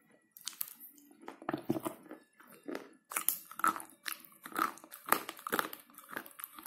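Slate pencil being bitten and chewed: a run of dry, crisp crunches, sparse at first and coming faster and louder from about three seconds in.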